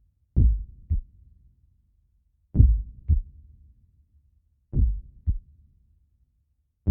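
Slow, deep double thumps in a heartbeat rhythm, a pair about every two seconds, in the opening of a music track.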